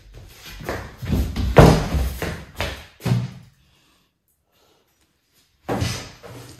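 Thuds and knocks of a black panther playing, its body and paws hitting the floor and a wooden door: a run of knocks through the first three seconds, a silent gap, then more knocking near the end.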